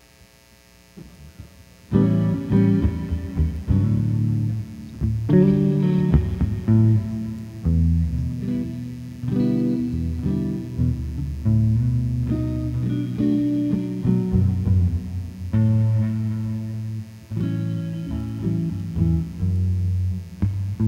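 Guitar music: plucked strings with low bass notes, starting about two seconds in.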